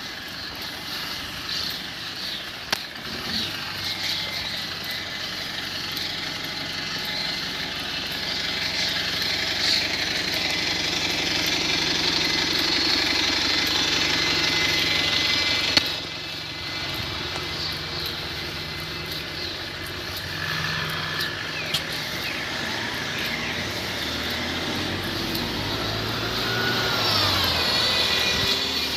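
Steady rumble of engines and street noise, loudest about halfway through, with a few sliding whistle-like tones near the end.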